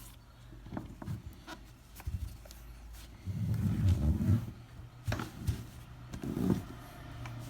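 Handling noise from a hand-held orbital sander being turned over and shown: scattered light clicks and knocks, with two low rumbles, the longer and louder one about three seconds in.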